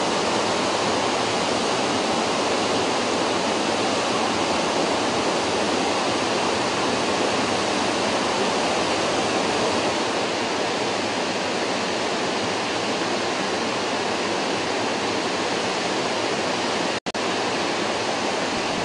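Large waterfall: a steady, dense rush of falling water that breaks off for an instant near the end.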